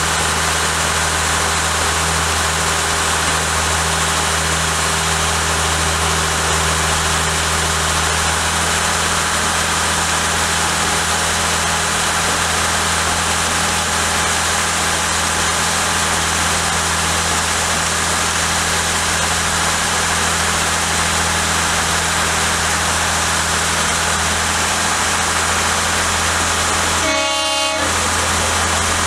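A narrow-gauge railway locomotive standing with a steady low engine drone under a constant hiss. Near the end a short whistle toot of about a second sounds.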